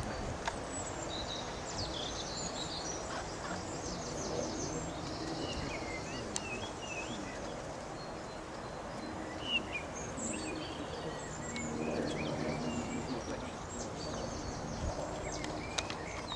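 Small birds singing and chirping, with many short, high calls and trills, over a steady background of outdoor noise.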